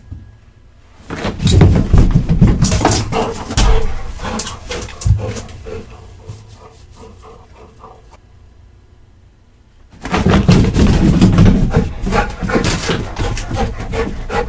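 A dog running on a hard floor, its paws and claws making quick, dense footfalls and clicks in two busy bursts, with a quieter stretch between.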